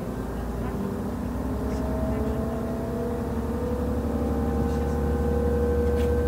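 Class 628.4 diesel railcar's MTU 12V183 TD13 engine and drivetrain running under load, heard from inside the train. A steady low rumble carries whining tones that rise slowly in pitch while the sound grows gradually louder.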